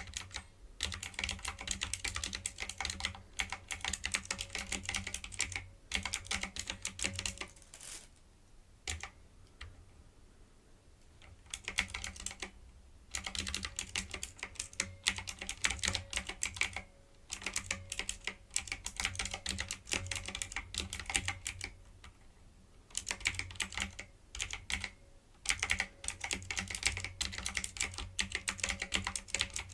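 Fast typing on a typewriter-style computer keyboard: dense runs of key clicks, stopping for a few seconds about eight seconds in and pausing briefly twice more later.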